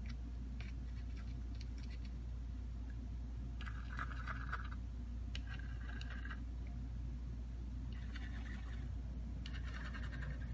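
Nozzle of a tube of adhesive scratching along the edge of a phone's frame as glue is laid around it, in four short scratchy strokes over a steady low hum.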